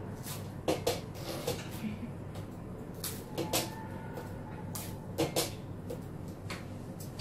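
Small scissors snipping strips of tape from a roll: three pairs of short, sharp clicks a couple of seconds apart, with the light crackle of tape being handled.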